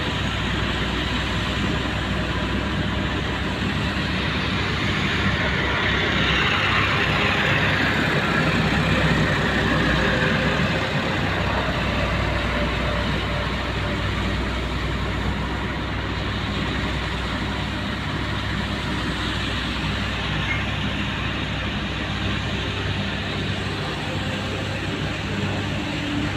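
Heavy diesel engine of a Hyundai excavator running steadily, its low hum continuous, growing somewhat louder with a brighter, higher sound for a few seconds near the middle before settling back.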